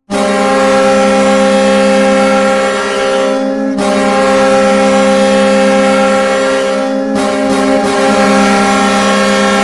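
Hockey arena goal horn blowing one steady low note, starting suddenly. It sounds in three long blasts with short breaks about three and a half and seven seconds in.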